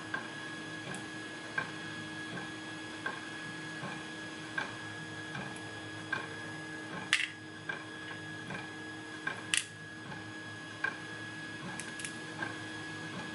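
Small sharp metallic clicks and taps, scattered and irregular, from a picked lock being handled and taken apart, over a steady electrical hum. The two loudest clicks come about 7 and 9.5 seconds in.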